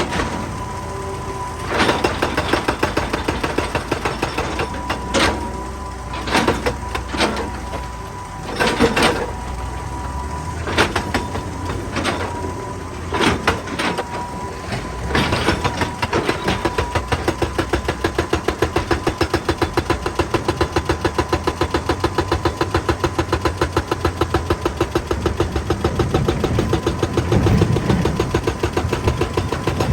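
Excavator working rock over its diesel engine: irregular knocks and scrapes with a steady high whine for about fifteen seconds, then a fast, even pounding of several blows a second, typical of a hydraulic rock breaker hammering.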